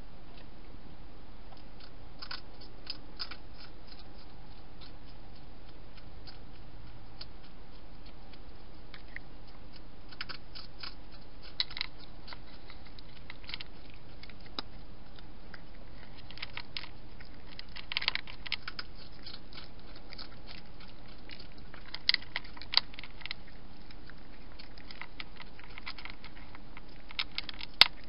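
An animal crunching dry food from a bowl: short, crisp crunches in irregular clusters over a steady hiss.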